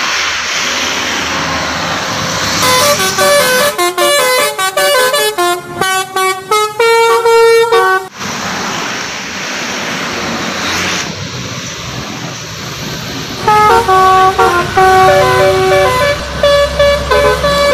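Telolet horn: a multi-tone bus or truck air horn playing quick, stepping melodies, in a long burst a few seconds in and again after about 13 seconds, with a steady rushing noise between the bursts.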